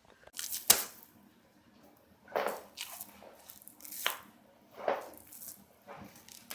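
Joint cracking during a chiropractic adjustment: a sharp pop about three-quarters of a second in and a fainter click about four seconds in, between several short rustling, breathy noises.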